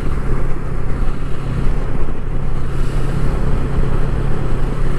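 Suzuki GSR250F parallel-twin motorcycle engine running at a steady cruise, a constant hum under a rush of wind and road noise.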